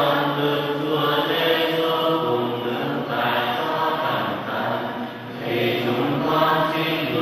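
Voices singing a slow hymn in long held notes, with a short lull about five seconds in.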